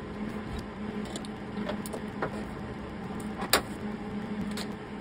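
Sheet-metal patch panel being handled and fitted by hand on a van body, giving a few light metallic clicks and taps, with one sharper click about three and a half seconds in, over a steady low hum.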